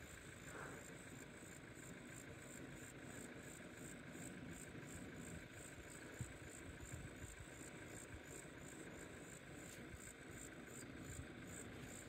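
Faint outdoor quiet with an insect chirping in a steady, high-pitched pulse about three times a second, over a faint low rumble.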